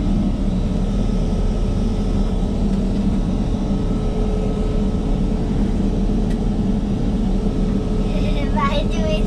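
Steady airliner cabin noise heard in the lavatory: a constant low rush of engine and ventilation air with a faint steady tone over it. A voice briefly near the end.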